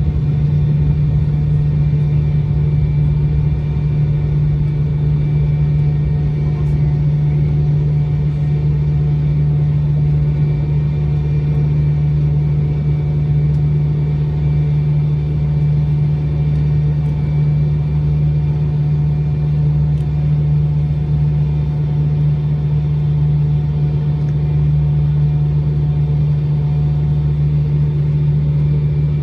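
Steady cabin drone of an MD-90 airliner taxiing with its rear-mounted IAE V2500 turbofans at idle: a strong, even low hum with a faint steady whine above it.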